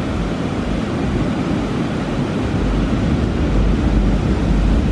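Strong surf breaking on a sandy beach, a steady rush of noise, with wind rumbling on the microphone that grows heavier about halfway through.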